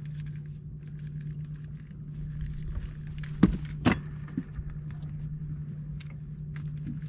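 Boat motor humming steadily at low speed. Light, rapid clicking of a fishing reel being cranked runs over it, and there are two sharp knocks about halfway through.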